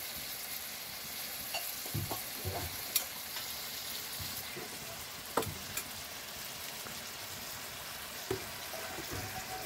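Chicken curry sizzling steadily in a black iron wok, with a few sharp clicks scattered through it.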